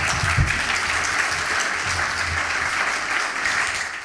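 Audience applauding, a steady dense clapping that fades out near the end.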